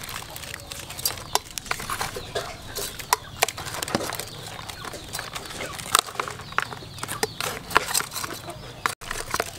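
Live snakeheads and climbing perch flopping in a woven bamboo tray, giving irregular taps and slaps against the bamboo.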